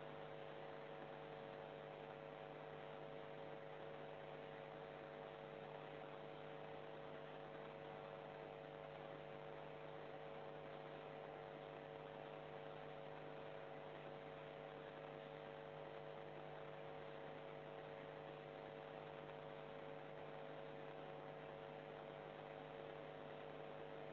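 Faint, unchanging electrical hum and hiss from a security camera's own audio, with no other sound in the scene.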